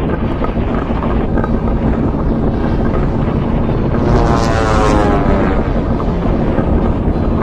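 A steady, dense low rumble with a faint hum, crossed about four seconds in by a whistling tone that falls in pitch over about a second and a half.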